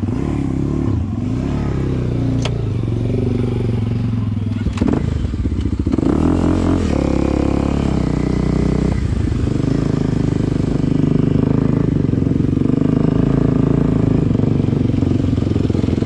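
Kawasaki dual-sport dirt bike engine running under the rider, revving up and down with the throttle over rocky ground. A couple of sharp knocks are heard early in the ride.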